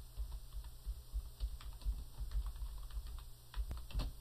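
Typing on a computer keyboard: a quick, irregular run of key clicks as a name is entered.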